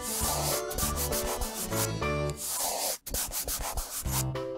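Scratchy scribbling of a marker or crayon being rubbed back and forth on paper, coming and going as an orange area is coloured in, over light background music.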